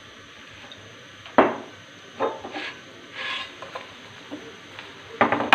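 A metal spatula knocks and scrapes against a non-stick frying pan as an egg-topped paratha is turned over and pressed down, with a low sizzle of frying underneath. There are sharp clatters, the loudest about a second and a half in, several more after it, and a quick cluster near the end.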